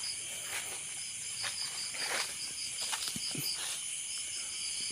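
Night chorus of crickets and other insects: a steady high-pitched chirring with one insect's regular pulsing chirp running through it, and a few faint rustles in between.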